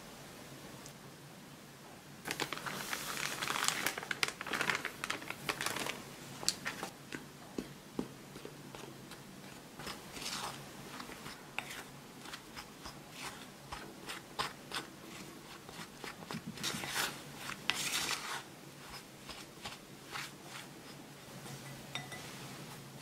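Silicone spatula stirring and scraping crumbly pancake-mix and yogurt dough in a glass bowl: irregular crunching, scraping strokes. The strokes come in two louder spells, one starting about two seconds in and one about three-quarters of the way through, with lighter scrapes between.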